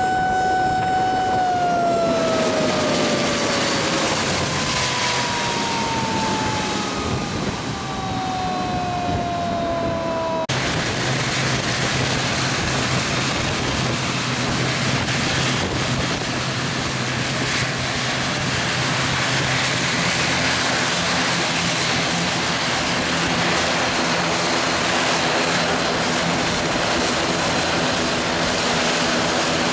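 ATR twin-turboprop airliner after landing: a high turbine whine holds, then falls steadily in pitch for several seconds as the engines power down. About a third of the way in it gives way abruptly to the loud, close-up drone of the engines and propellers as the aircraft taxis, with a steady low hum underneath.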